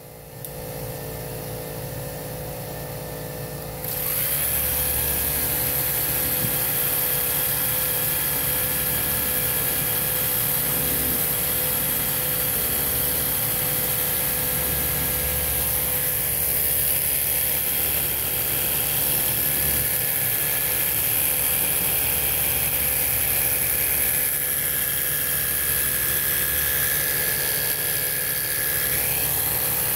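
Pressure washer switching on about four seconds in and spraying a steady jet of water to rinse a car's engine bay: a hiss of spray over the motor's low hum, with a steady machine drone underneath throughout.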